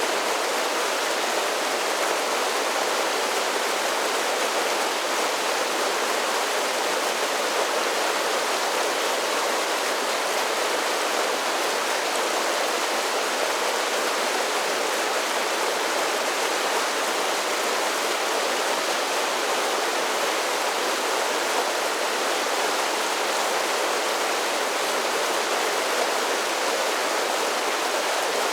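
Creek water pouring over a series of small waterfalls, a steady rushing splash without pauses.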